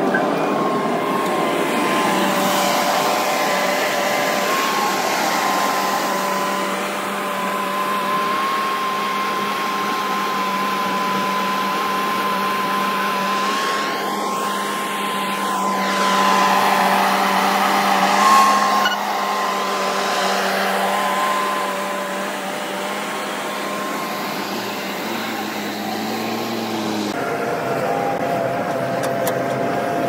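Diesel engines of a JCB 3DX backhoe loader at work and a tractor standing by, running steadily with a steady whine over the engine note. Near the end the engine note rises slightly and then changes abruptly.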